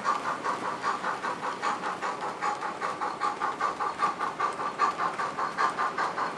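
Sound decoder of a model 231G steam locomotive playing steady, rhythmic exhaust chuffs through the model's small speaker, about five a second.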